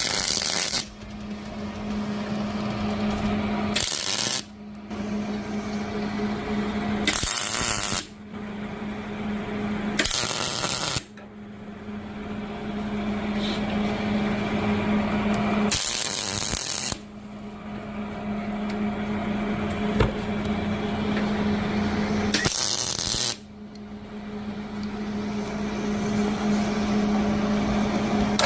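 A high-speed grinder running with a steady whine, broken every few seconds by a loud, harsh burst of about a second, six times in all.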